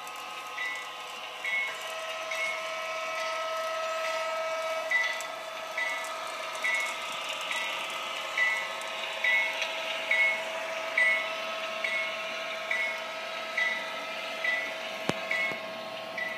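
HO-scale model locomotive's DCC sound decoder ringing its locomotive bell, about one strike a second, over a steady electronic engine hum.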